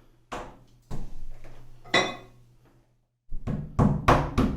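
Hammer tapping wall anchors into holes drilled in porcelain tile: three separate taps, then a quick run of strikes, about four a second, starting over halfway through and getting louder.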